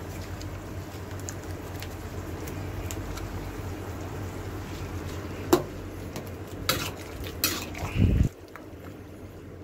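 Metal spatula scraping and knocking against a wok while stirring pork menudo simmering in tomato sauce. There are a few sharp knocks between about five and a half and seven and a half seconds in. A steady low rumble underneath stops suddenly just after eight seconds.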